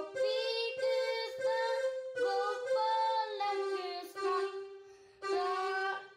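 Background music: a melody in short phrases over a steady held drone note, with a brief break near the end.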